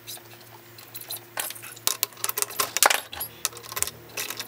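Steel chuck key clicking and rattling in a mini lathe's three-jaw chuck as the jaws are loosened to free the part: a quick run of sharp metallic clinks, densest between about one and a half and three seconds in.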